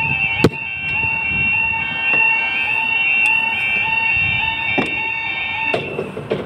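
Level crossing audible warning alarm sounding a loud, repeating two-tone warble that cuts off near the end. A sharp click comes about half a second in.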